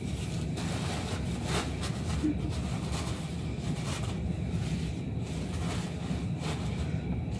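Disposable diapers rustling faintly a few times as they are handled and laid flat, over a steady low background hum.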